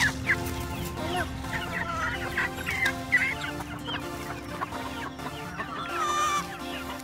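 Chickens clucking and calling over and over while they feed, over background music with long held notes.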